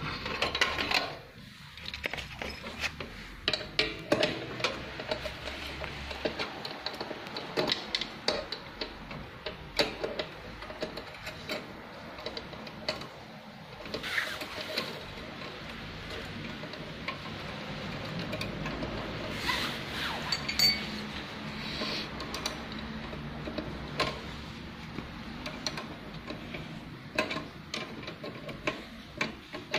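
Irregular metallic clinks and knocks, with handling noise in between, as the pedal connecting rod is fitted to its joint on the industrial sewing machine's steel table stand.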